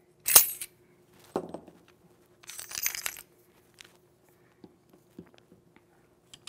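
VR80 shotgun's gas-assembly parts, small metal pieces, clinking as they come off the barrel and are set down. A sharp metallic clink comes about a third of a second in and a knock about a second later. A short scraping rattle follows around three seconds in, then a few light taps.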